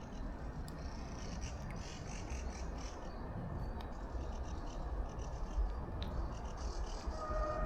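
Forest ambience: a steady low rumble with faint, repeated high chirps. About seven seconds in, a distant steady pitched tone with several overtones begins.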